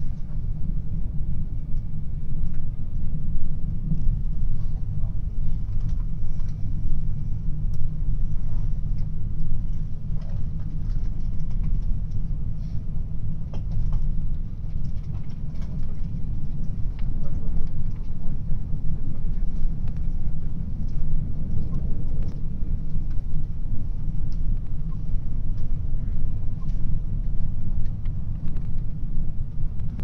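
JR Hokkaido passenger train running along the line, heard from inside the carriage: a steady low rumble with faint scattered clicks.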